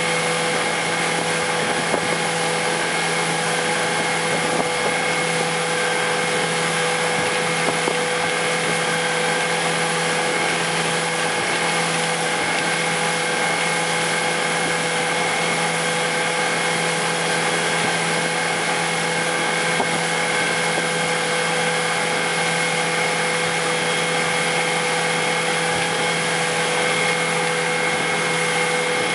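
Outboard motor of a towing speedboat running steadily at speed, an even drone over a constant rush of wake water.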